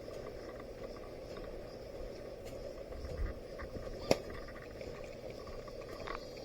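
Steady outdoor background noise with one sharp, loud click about four seconds in and a few fainter ticks around it.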